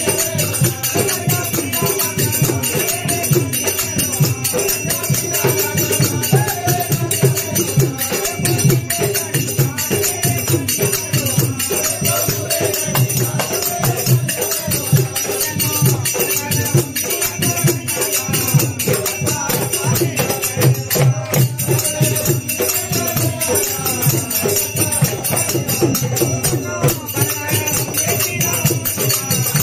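Group of men singing a Hindu devotional bhajan together in chorus, accompanied by tabla and dholak drums playing a steady beat.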